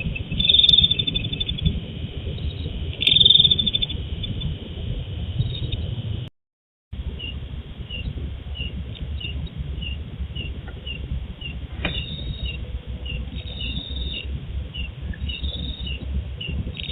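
Night-time animal calls picked up through a CCTV camera's microphone over a steady low hiss. Two loud, short, rapid high trills come near the start, then a regular high chirp about twice a second. The sound drops out to silence for about half a second around six seconds in.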